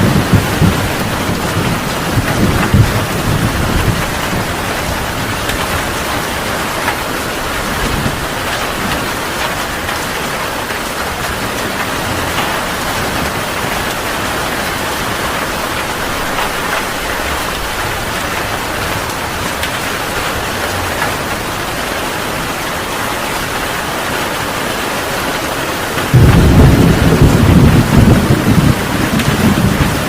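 Heavy rain falling steadily, with thunder rumbling. A low rumble fades over the first few seconds, and a loud rolling thunderclap comes in suddenly near the end.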